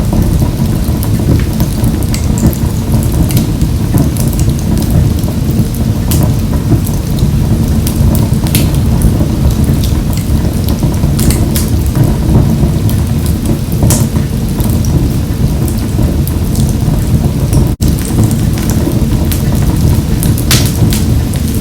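Wood fire burning in a wood-burning stove: a steady low rumble of burning with scattered sharp crackles and pops. The sound drops out for an instant about eighteen seconds in.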